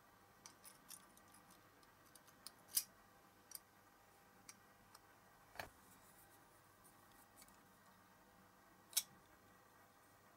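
Small clicks and taps of a clear plastic window insert being handled and pressed into the diecast body of a Matchbox Mercury Commuter model car. Two sharper clicks stand out, about three seconds in and near the end.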